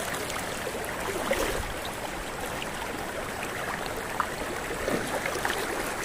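Shallow mountain river flowing over rocks: a steady wash of running water, with a few small splashes.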